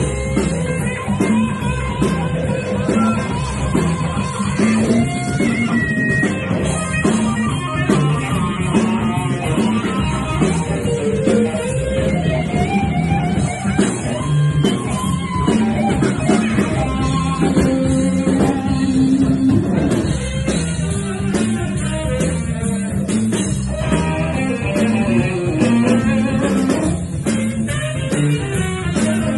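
A live blues band playing: electric guitar, saxophone and drum kit.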